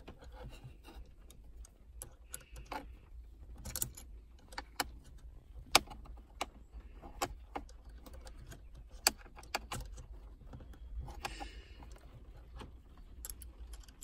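Irregular metallic clicks and clinks of an Allen key working the bolts of a short-shift kit clamped onto a car's gear lever as it is tightened, over a steady low hum.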